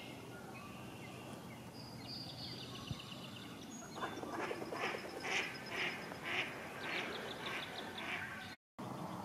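Mallards quacking: a run of about eight quacks, about two a second, starting about four seconds in and growing weaker near the end. Small birds chirp faintly before it.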